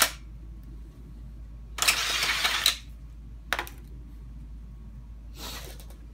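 A cordless drill stops at the very start, followed by workbench handling noise: about a second of scraping and clattering two seconds in, a single sharp click a second and a half later, and more rustling near the end.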